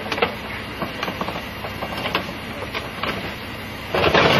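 Wrecked car's crushed metal body being forced off a train, heard under a steady mechanical running sound. Irregular clicks and creaks of metal, with a louder burst of noise about four seconds in.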